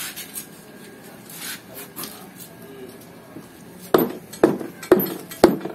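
A hammer striking a tool wedged into the seam of a Subaru EJ20 engine block, trying to split the block halves apart. Four sharp metallic strikes about two a second, starting about four seconds in, after a few faint clinks of tools on the block.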